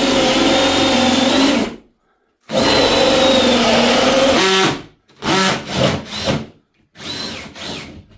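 Power drill running at full speed with a steady whine, stopping and starting: two long runs, then several short, uneven bursts near the end.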